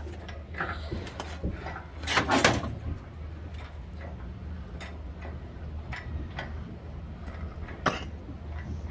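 Scattered metallic clinks and knocks of a hoist chain and an engine being lifted out of a race car's engine bay, with a longer scraping rattle about two seconds in and a sharp knock near the end.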